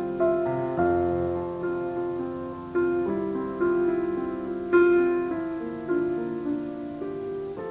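Slow, gentle piano music: notes and chords struck about once a second, each one ringing and fading before the next.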